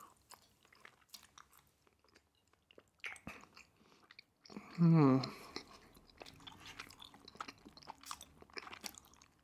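Close-miked chewing: soft, scattered wet clicks of a mouth working on food. About halfway through, a short voiced sound falling in pitch, the loudest moment.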